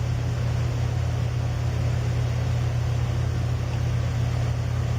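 A steady low mechanical drone from a running engine or motor, holding an even pitch with no revving.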